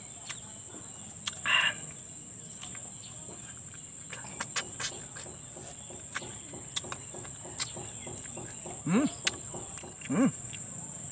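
Chewing and mouth clicks while eating sineguelas (Spanish plum) fruit, over a steady high insect drone. A brief rasp comes about a second and a half in, and a chicken clucks twice near the end.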